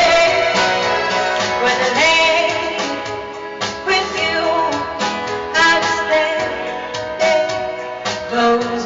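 A song with a singer's voice over instrumental backing.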